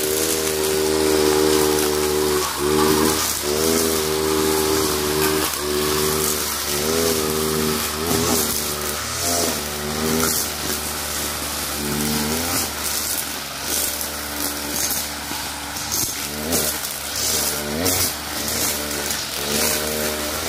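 Kawasaki TJ45 two-stroke brush cutter engine running at high revs while cutting overgrown grass. Its pitch dips and recovers again and again, every second or two, as the cutter swings through the grass.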